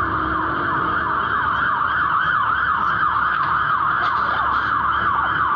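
Fire engine siren sounding a fast up-and-down yelp, about three sweeps a second, over low street traffic noise.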